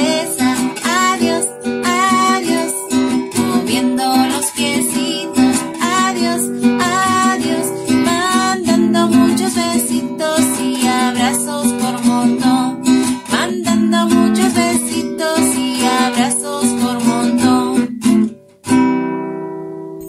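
A children's goodbye song sung in Spanish to strummed acoustic guitar. About eighteen seconds in the playing breaks off, and a last strummed chord rings out and fades.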